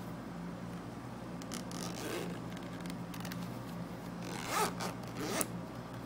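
Zipper on a DJI Osmo Mobile 3 hard-shell carrying case being pulled open in two runs: a softer one about two seconds in and a louder one near the end.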